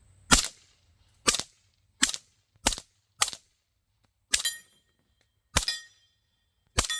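Eight single shots from a suppressed 9mm SD-style carbine with a Ralph Smith RDTS suppressor, firing 115-grain ammunition. The shots come at uneven intervals of roughly one second. The last three are each followed by a short metallic ring as the bullets hit a steel target. The gun cycles reliably with this load.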